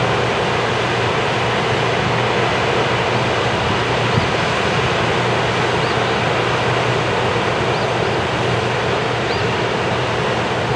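Floodwater pouring through the open spillway gates of a small river dam: a loud, steady rush of falling water, with a lot of water coming through.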